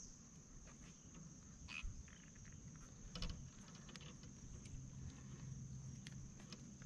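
Faint, steady high-pitched insect chirring from the riverbank, with a few soft clicks from the small catfish being handled and unhooked, about two and three seconds in.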